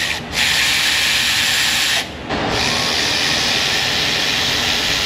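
Power tool spinning out loosened A/C compressor mounting bolts, running in three spells with short pauses between, the last the longest.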